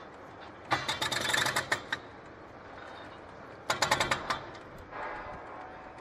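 Hydraulic breaker on a remote-controlled demolition machine hammering concrete in two short bursts of rapid blows, the first about a second long and the second about half a second.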